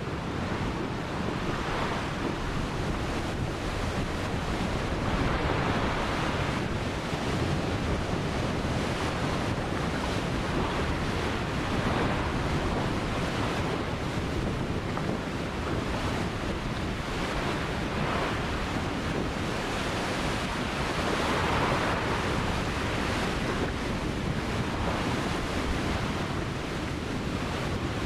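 Ocean waves breaking and washing up on a beach, in soft surges every few seconds, with wind rumbling on the microphone.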